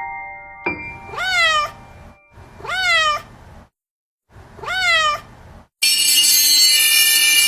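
A cat meowing three times, about two seconds apart, each meow rising then falling in pitch. A fading ringing tone trails off at the start, and loud music comes in near the end.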